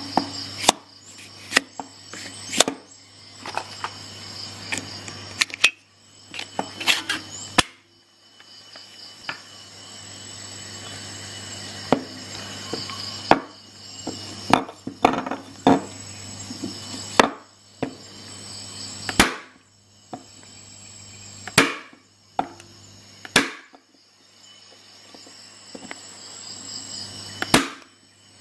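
Parkside PHET 15 B1 electric stapler/nailer firing staples and nails into wood: a dozen or more sharp, loud clacks at irregular intervals of one to four seconds, over a steady low hum.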